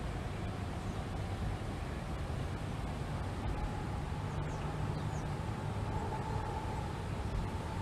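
Wind blowing across an open microphone: a steady rumbling hiss with no gaps. A faint steady hum runs underneath and grows a little stronger in the second half, and a few faint high bird chirps come about halfway through.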